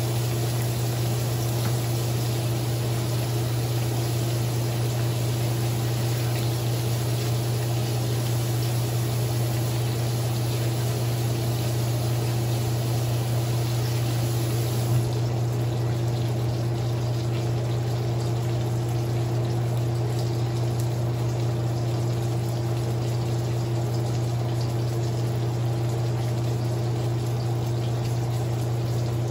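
Ribeye steak frying in hot oil in a wok, a steady sizzling hiss, over a loud, steady low hum. A single light tick comes about halfway through.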